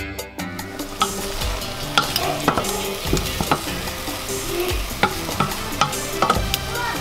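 Food sizzling as it fries in a steel pot, stirred with a wooden spoon that scrapes against the pot several times.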